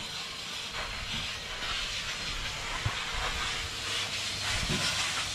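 Vacuum cleaner running steadily, its wand sucking over the bare metal floor of a van's cargo area, with a couple of faint knocks.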